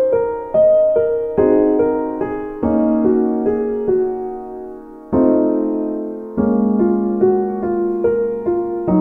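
Background piano music: a slow melody over chords, each note struck and then fading away.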